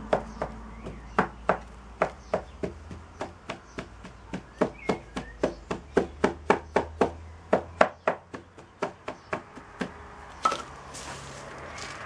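A wooden rammer packs foundry moulding sand into a wooden moulding box, making a rapid run of dull thuds at about three a second that stop about ten seconds in. Near the end comes a soft rustle of loose sand being heaped in by hand.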